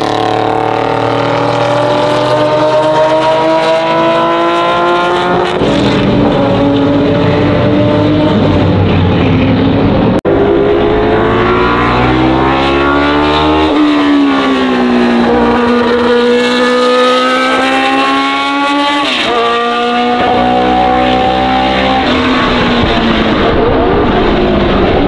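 Race car engines at high revs, the pitch climbing through the gears and dropping at each shift, one car after another passing trackside.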